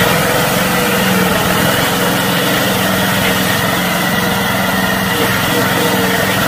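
Engine of a homemade tracked tank prototype running at a steady, even pitch while the vehicle drives across grass.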